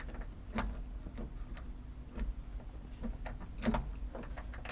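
Irregular light metallic clicks and knocks from an ignition key cylinder being wiggled with its key to work it out of its housing.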